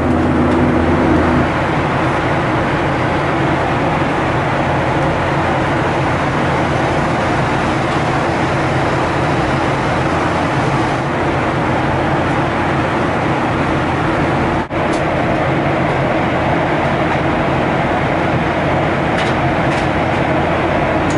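Steady cabin noise of a Boeing 737-800 at cruise altitude: the even rush of airflow over the fuselage with the low hum of its CFM56-7B engines. A low hum stops about a second and a half in, and the sound drops out for an instant about two-thirds of the way through.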